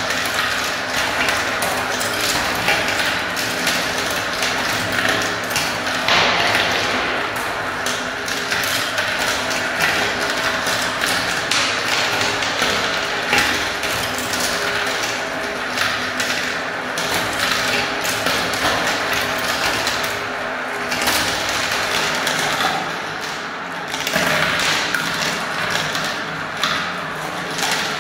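Many small plastic balls rolling and circling around clear plastic marble-run funnel bowls and dropping into the tubes, a continuous dense clatter of tiny clicks and taps.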